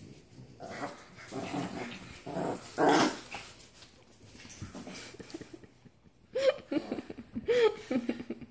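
French bulldog puppies and small dogs playing: rough play growls in the first few seconds, loudest about three seconds in, then higher gliding whines and yips near the end.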